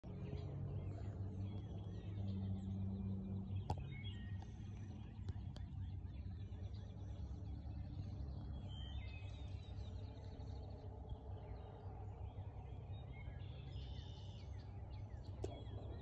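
Songbirds singing outside, short bursts of chirps and trills a few times, over a steady low hum.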